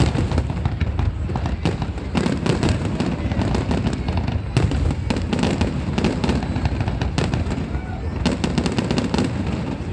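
Aerial fireworks display going off: a rapid, continuous string of sharp bangs and crackles over a low rumble, with thick clusters of crackling about four and a half seconds in and again near the end.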